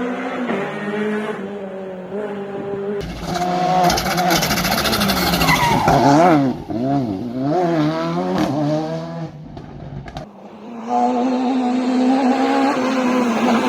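Rally cars on a closed stage at full attack, engines running hard. About three seconds in, a car comes close and loud, its engine pitch swinging up and down several times as the driver comes on and off the throttle through the corners. Near the end a steadier engine note carries on.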